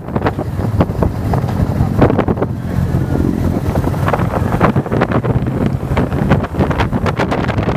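Yamaha motorcycle engine running at low road speed, slowing and then picking up again, under heavy wind buffeting on the microphone.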